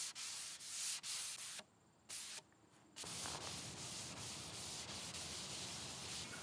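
Hand sanding of bleached veneer with a sanding sponge: quick back-and-forth strokes that rasp across the wood, taking off the dried bleach residue, and stopping about a second and a half in. After a short gap, a cloth rubs steadily over the damp wood surface.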